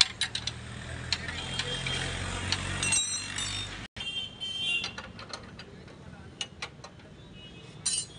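Irregular light metallic clicks and knocks of hand work on a motorcycle's rear wheel and drive chain. The sound drops out briefly about four seconds in.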